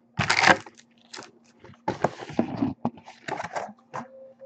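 Topps Platinum football hobby box being opened and its foil-wrapped card packs pulled out and set down: a few short tearing and crinkling rustles, the loudest about a quarter second in.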